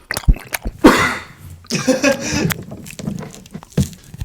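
Close-up mouth noises from someone eating: sharp wet clicks and smacks, with two longer breathy bursts in the first half.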